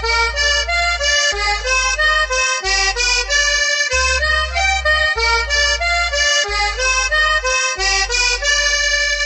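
Cumbia recording playing without vocals: an accordion melody over a bass line that shifts about once a second.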